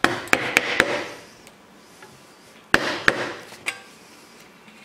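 Machete blade chopping and paring into a wooden stick laid across a wooden post. A quick run of four sharp knocks with scraping cuts comes first, then after a pause three more.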